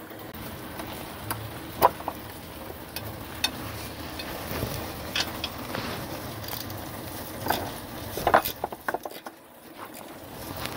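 Steady patter of rain, with scattered sharp metallic clicks and clinks from a wrench working the lower bolt of a minivan's rear shock absorber. The clicks come loudest a little past the middle.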